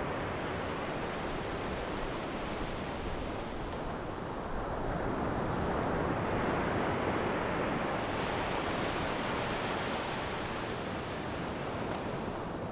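Sea waves breaking and washing on the shore, a continuous surf noise that swells and ebbs slowly, with the brightest surges about a third of the way in and again near the end.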